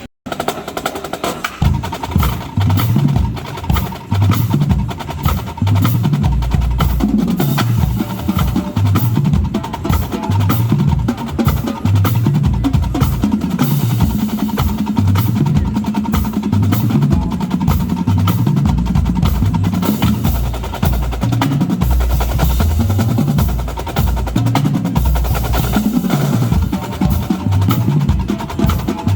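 Marching drumline playing at full volume: snare drums with rolls over tuned bass drums that step between different pitches, starting abruptly about a second in.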